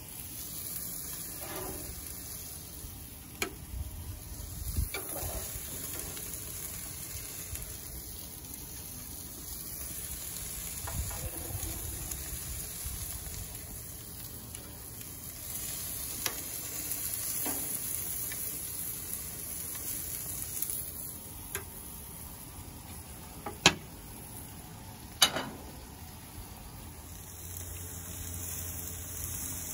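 Marinated kebab skewers sizzling on a gas barbecue grill: a steady hiss, with a few sharp clicks and two louder cracks late on.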